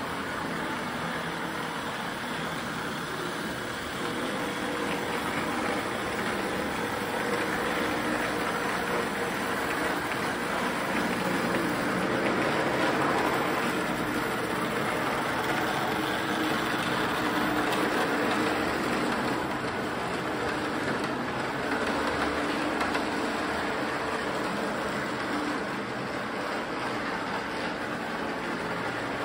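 Lionel Pennsylvania GG1 O-gauge model locomotive pulling freight cars around a loop of three-rail track: the steady whir of its electric motor and the rumble of wheels on the rails, louder in the middle stretch as it passes close. No horn or sound effects.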